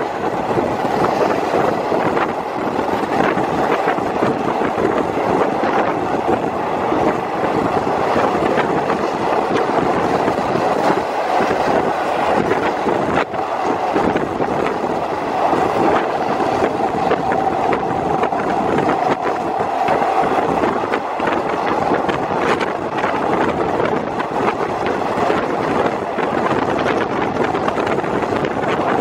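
Wind rushing past an open carriage window of a moving passenger train, mixed with the steady running noise of the wheels on the rails as the train gathers speed. A single sharp click about 13 seconds in.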